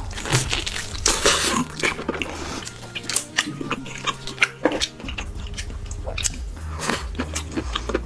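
A person biting into a tomahawk steak and chewing it close to the microphone: many short wet mouth clicks and smacks, irregular and repeated throughout.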